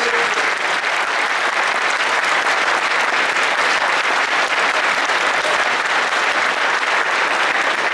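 Audience applauding steadily, a dense, even clapping with no pause.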